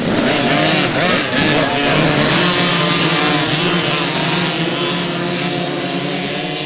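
A pack of small two-stroke kids' motocross bikes accelerating off the start together. Many engines rev and rise in pitch over one another at first, then settle into a steadier, overlapping drone as the pack pulls away.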